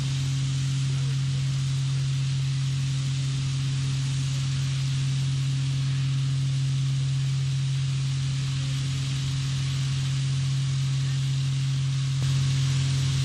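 Ultra-high-pressure water-jetting equipment running steadily: a constant low drone with an even hiss over it.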